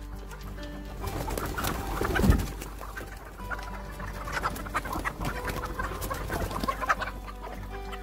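A flock of domestic chickens clucking as they crowd through an opened shed door, over background music. A single louder thump about two seconds in.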